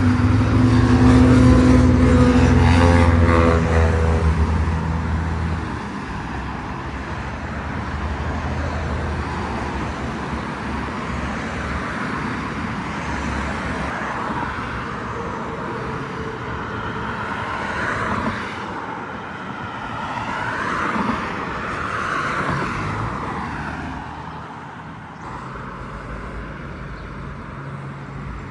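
Road traffic at an intersection: a vehicle engine is loudest for the first five seconds or so, then cars pass steadily, with a few rising and falling engine sweeps in the second half.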